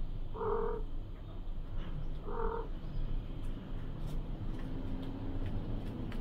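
Adult black-and-white cat meowing twice, two short even-pitched calls about two seconds apart, near the start.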